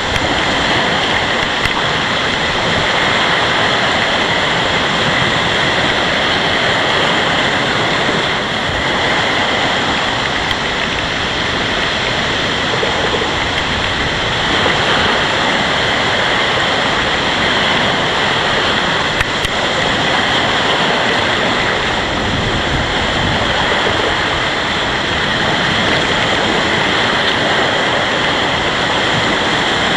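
Storm wind and rough, whitecapped lake waves breaking on the shore: a loud, steady rushing noise.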